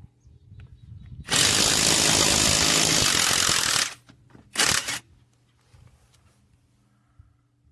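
AOBEN 21V cordless impact wrench running. One loud burst starts about a second in and lasts about two and a half seconds, then a second short burst of about half a second follows.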